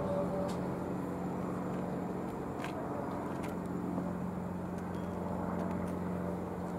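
A steady low engine drone over an even background rumble, with a few faint clicks.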